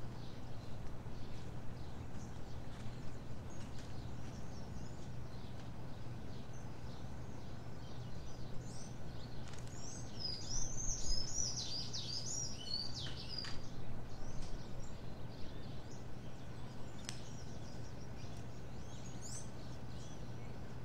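Several small birds chirping and singing, the song busiest about halfway through, over a steady low hum.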